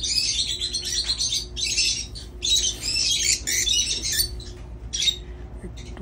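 Several lovebirds chirping and squawking, with shrill calls in quick runs during the first half that thin out after about four seconds.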